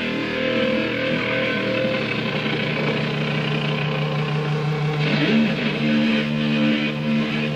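Live hardcore punk band playing a passage without vocals: distorted electric guitar holding long chords over the band.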